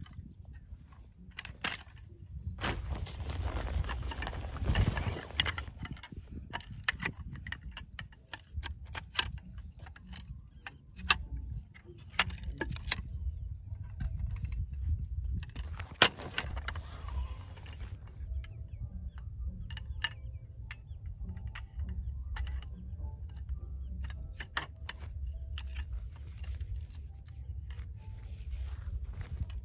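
Camping gear being handled: scattered sharp clicks and light metallic clinks, with two longer rushes of rustling, over a steady low rumble.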